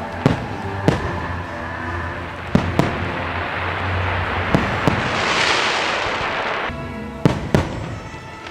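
Fireworks shells bursting in sharp bangs, about eight in all, several in quick pairs, over the show's music playing from loudspeakers. A hissing swell rises about five seconds in.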